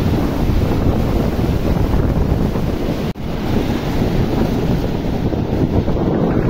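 Rough sea surf washing over a flooded shoreline, with strong wind buffeting the microphone into a heavy, steady low rumble. The sound cuts out for an instant about halfway through.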